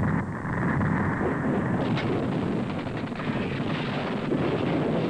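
Loud, continuous rumbling roar of battle noise, turning harsher and brighter about two seconds in.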